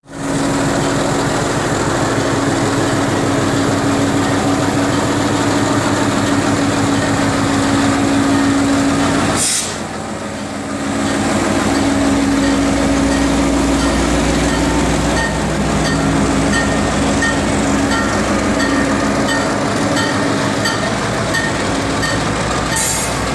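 FCCA diesel-electric locomotive 533 running close by as it slowly hauls container flatcars, its engine giving a steady hum, with a faint regular ticking from the rolling cars in the second half. The level dips briefly about ten seconds in.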